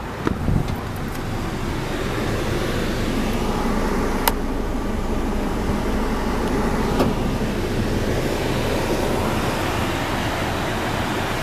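2006 Chevrolet Colorado pickup's engine running steadily at idle, heard from inside the cab. A few sharp clicks from handling sound over it, the loudest about four seconds in.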